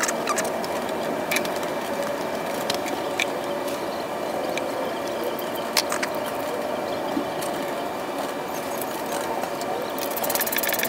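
A few scattered light clicks of small parts being handled at a lawn mower's carburetor and throttle linkage, over a steady background noise.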